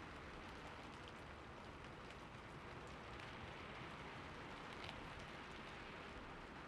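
Steady rain falling, a soft even hiss with faint scattered drop ticks.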